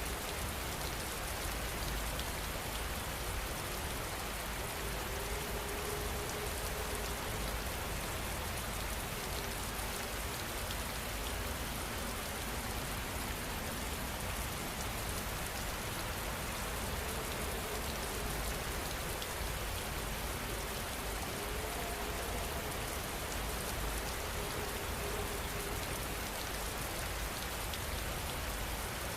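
Steady rain falling, an even hiss of drops that neither builds nor fades.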